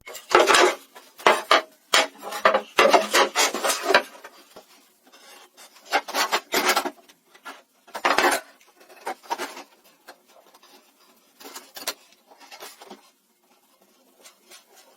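A hand tool scraping or rasping across wood in quick, irregular strokes. The strokes come in a dense run for about four seconds, then return in scattered short bursts that grow fainter toward the end.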